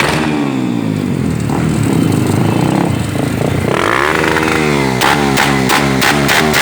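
Honda XR250 Tornado's single-cylinder engine revved through an aftermarket ProTork sport exhaust. It climbs in pitch a little before four seconds, then from about five seconds bounces off the rev limiter, the revs rising and cutting out about three times a second.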